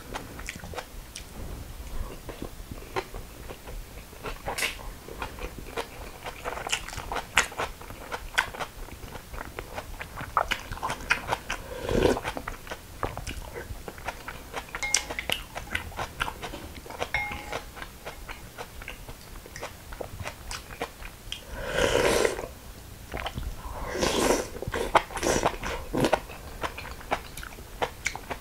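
Close-miked chewing and biting of raw young radish greens (yeolmu) bibimbap, a steady run of short crisp crunches from the uncooked stems. A few longer, louder mouth noises stand out, about 12 seconds in and again twice near the end.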